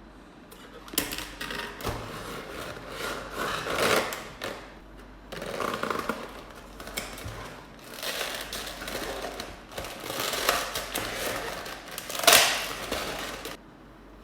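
Toy packaging being handled and opened by hand: rustling, crinkling and clicking of cardboard and plastic in irregular bursts, the loudest near the end.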